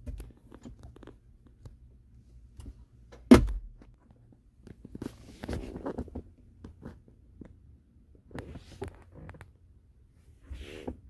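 Handling and rustling noises inside a car's cabin, with a steady low hum underneath and one loud thunk about three seconds in.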